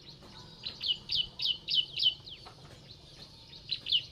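A bird calling in a rapid series of short, downward-sliding chirps, a run of about five in the first half and another run starting near the end.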